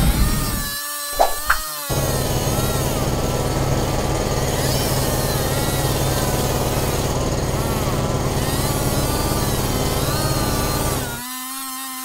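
Cartoon power-drill sound effect: a steady buzzing grind with a low hum as the drill bores into rock. It starts about two seconds in and cuts off near the end.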